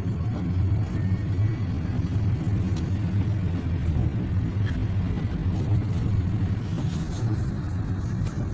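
Steady low rumble of a car under way, heard from inside the cabin: engine and road noise with no sharp events.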